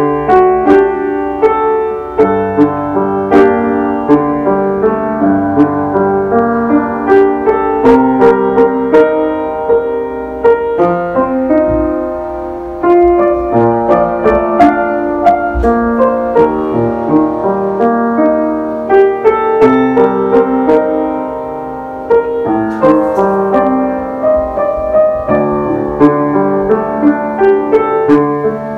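Baldwin Acrosonic upright piano being played: a flowing melody over chords. Short breaks between phrases come about 13 seconds in and again about 22 seconds in.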